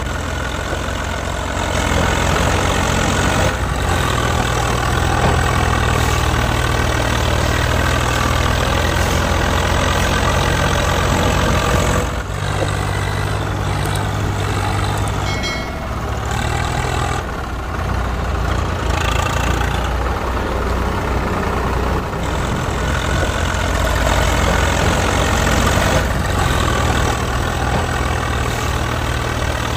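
A tractor engine idling steadily, its note shifting a few times along the way; it is an engine sound laid over the toy-tractor footage, not the toys themselves.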